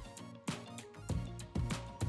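Soft background music with sustained notes, in a gap in the narration.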